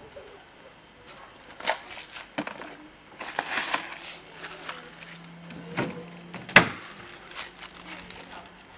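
A small packet crackling and crinkling as it is handled and crumpled in the hands, with scattered clicks and one sharp click about two-thirds of the way through.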